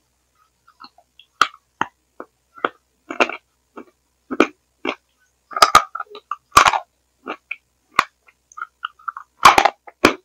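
Close-miked mouth sounds of eating from a spoon: irregular wet smacks and clicks with silent gaps between them, loudest near the end. They come through a headset microphone that the uploader says let her down, turning the eating sounds into a crackly gurgle that she likens to a frog's dying gurgle.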